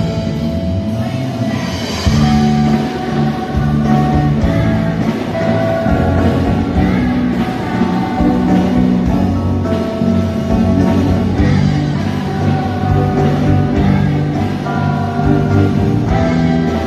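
Orchestra playing an arrangement of a pop song: long held notes over a continuous low accompaniment.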